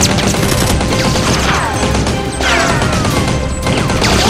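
Dubbed-in gunfire sound effects over background music during a Nerf blaster firefight, with several whizzing whines that fall in pitch.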